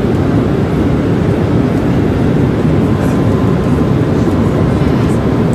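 Boeing 787 jet airliner's engines running, a loud, steady low rumble.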